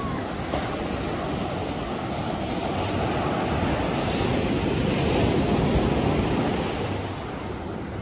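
Ocean surf breaking and washing up a sandy beach in a continuous rushing wash that swells louder about halfway through and eases near the end, with wind rumbling on the microphone.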